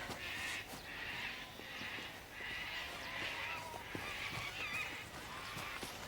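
Outdoor farm ambience: a high chirping that repeats about every three-quarters of a second, with a few short bird-like calls and scattered soft knocks.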